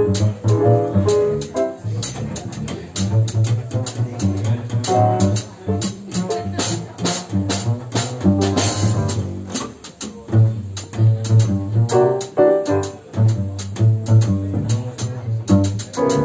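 Live jazz piano trio playing: a plucked double bass line stepping through low notes, piano on a Yamaha stage piano, and drums with frequent cymbal strokes.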